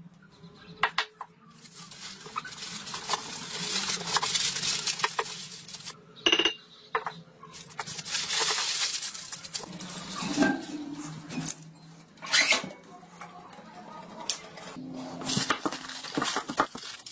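Aluminium foil crinkling and rustling as a wooden grip is wrapped up in it, with scattered sharp clicks and taps; a faint steady low hum runs underneath.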